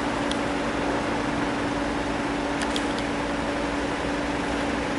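Lockheed P-3 Orion's four turboprop engines droning steadily with a held, even pitch as the aircraft flies low on approach with its landing gear down.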